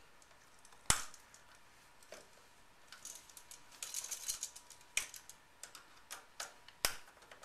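Clicks and small ticks from handling a new electrical outlet, its stiff wire and a screwdriver: one sharp click about a second in, a quick patter of light ticks in the middle, and two more sharp clicks later on.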